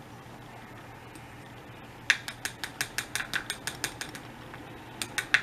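Quick ratcheting plastic clicks, about seven a second for two seconds, then a few more near the end: a loose-powder jar being twisted.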